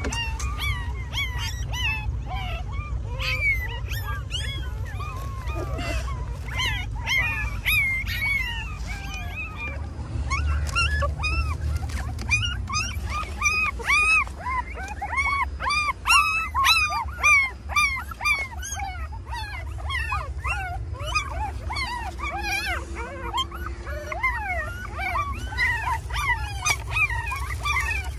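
A litter of young puppies whimpering and crying, many short rising-and-falling cries overlapping, over a steady low rumble.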